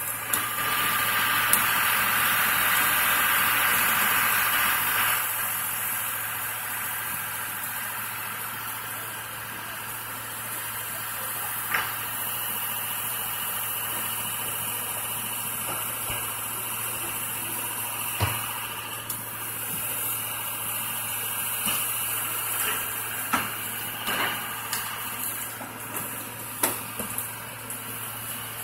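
Truck engine idling steadily, louder for the first few seconds, with a few scattered knocks and clatters.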